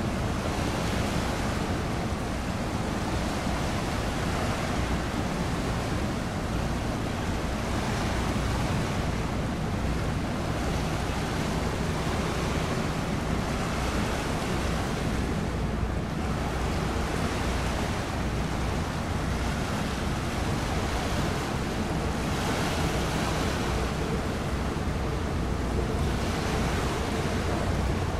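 Strait water washing against the shore, swelling and easing every few seconds, with wind on the microphone and a low steady hum underneath.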